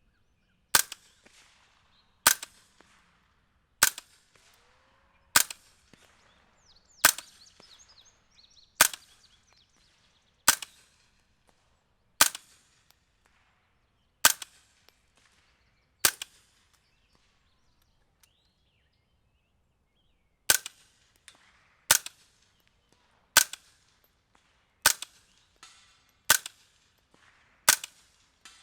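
Shots from a suppressed firearm fired at a steady pace, about one every one and a half seconds: sixteen sharp reports with a pause of about four seconds midway.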